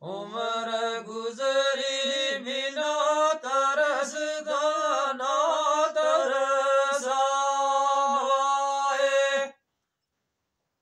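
A man singing unaccompanied in long, held, ornamented phrases, in a folk chant style. The voice cuts off suddenly about nine and a half seconds in, leaving silence.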